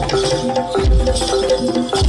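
Campursari music played live: a repeating pitched melody over percussion, with a deep drum thump about every second and a quarter.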